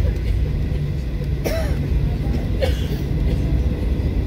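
Cabin noise of a Boeing 737-800 taxiing: a steady low rumble of its CFM56-7B engines at taxi power and the rolling airframe, heard from inside the cabin. Two brief clicks stand out, about a second and a half and two and a half seconds in.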